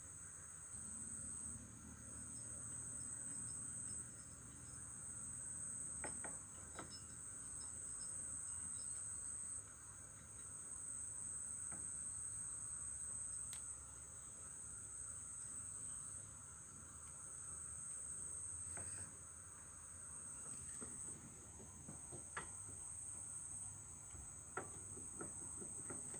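Crickets chirping in a steady high trill that pauses and resumes every few seconds. A few faint clicks come from a motorcycle clutch housing being turned by hand.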